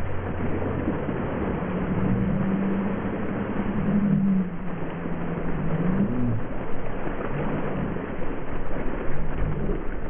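Ice water poured from plastic buckets over seated people, a steady splashing rush of water that eases as it drains off them, with a low wavering hum underneath.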